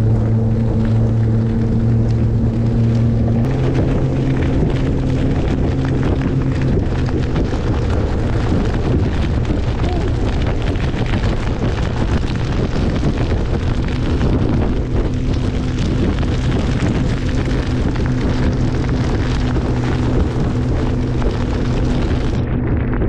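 Boat motor running steadily at speed, under heavy wind noise on the microphone; the engine pitch steps up a little about three and a half seconds in.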